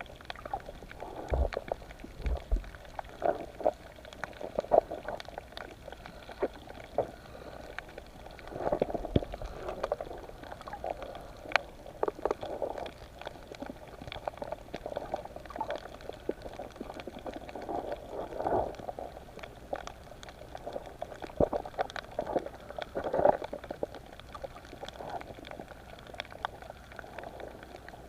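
Underwater bubbling and gurgling with many irregular clicks and pops, as heard through a camera underwater.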